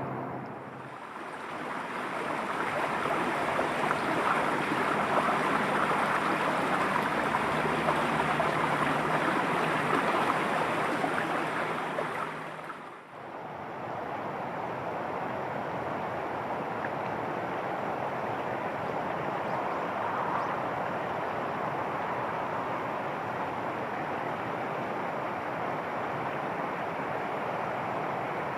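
Steady rushing of running water, like a stream, with no distinct events. The sound dips briefly about 13 seconds in and then carries on at a slightly lower, even level.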